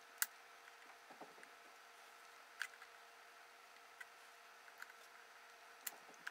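Near silence broken by about half a dozen faint, sharp metallic clicks and taps, the loudest about a quarter second in: a cotter pin being worked into a wringer transmission shaft with pliers.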